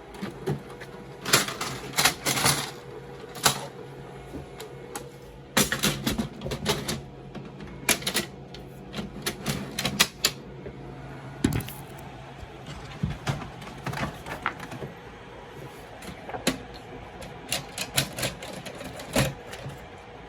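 Keyboard typing: irregular bursts of sharp key clicks with short pauses between runs, over a steady low hum.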